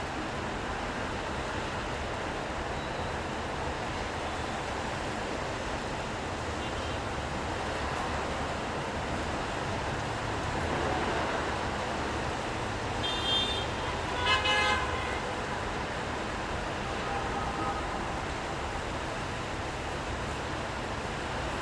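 City street traffic on a rainy day, a steady hiss of passing cars and rain. Car horns honk near the middle, two short toots about a second apart, then a fainter toot a few seconds later.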